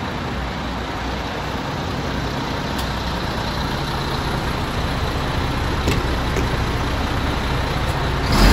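MAN TGX 26.480 tractor unit's 480 bhp turbo diesel engine idling steadily, a low even rumble.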